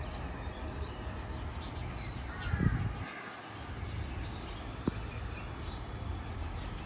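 A bird calls briefly about two and a half seconds in, over a steady low rumble, with a single sharp click near five seconds.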